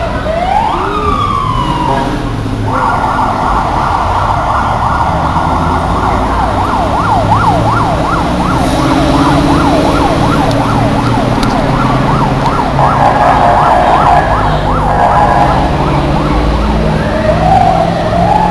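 Police car siren: a rising whoop near the start, then a long loud siren that turns into a fast yelp, sweeping up and down about three times a second, then a steadier warble, with another short whoop near the end. Traffic rumbles underneath.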